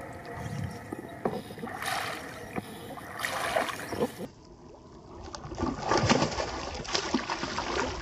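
Small splashes and gurgles of a topwater frog lure being twitched across a weedy pond surface. About halfway through the sound changes to a denser run of pattering and splashing, like rain falling on the pond water.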